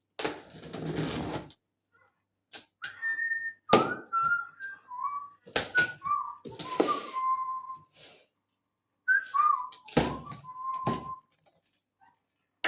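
A person whistling a tune in short phrases while a package is opened, with a long rasp of packaging noise at the start and several sharp knocks in between.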